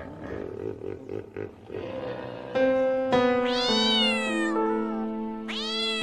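Background music with steady held notes, and a domestic cat meowing twice in the second half: two long meows, each rising and then falling in pitch.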